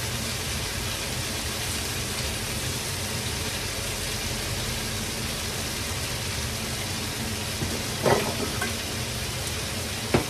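Shredded cabbage and other vegetables sizzling steadily in a hot wok, with a couple of short knocks near the end.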